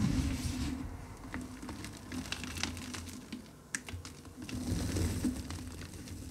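Reformed gym chalk being crushed by fingers in a plastic tub: soft crunching and crackling of the crumbling chalk over dull thumps of the pressing hands, with the heaviest thump right at the start.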